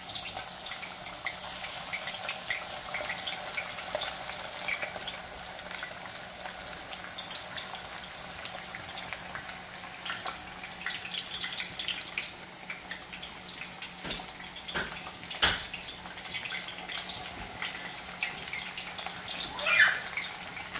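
Green plantain pieces frying in about half an inch of hot oil: a steady sizzle with fine crackling. A sharp knock comes about fifteen seconds in, and a brief louder burst near the end.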